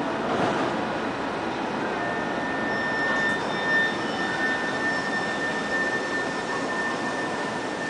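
Steady outdoor city rumble and hiss, with a thin, steady high whine joining about two seconds in.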